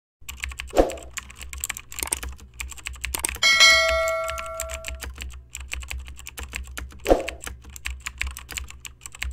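Rapid keyboard typing clicks, with two heavier key thumps about a second in and about seven seconds in. A bell dings about three and a half seconds in and rings out over a second and a half.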